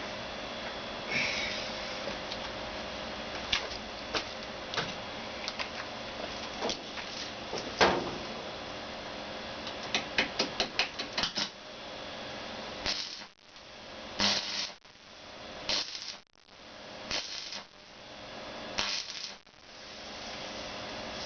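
Scattered sharp clicks and knocks of hand work on small hard parts, with a quick run of about eight clicks about ten seconds in. In the second half come short swells of hiss that each cut off suddenly.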